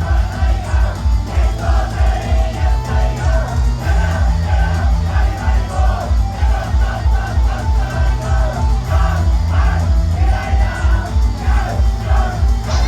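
Idol pop song performed live through a loud club PA: a sung vocal line over a heavy, steady bass beat.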